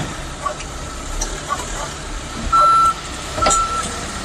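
Electronic beeper sounding a single repeated tone, about one beep a second, starting about two and a half seconds in, over a steady background of vehicle noise, with a knock about halfway through the beeping.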